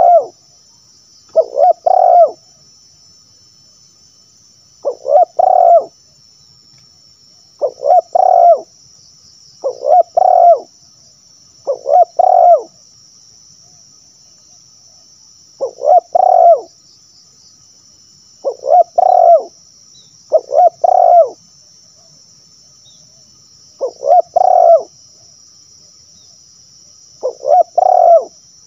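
Spotted dove cooing: a hoarse call of two or three quick notes, repeated about every two to four seconds. A steady high hiss runs behind it.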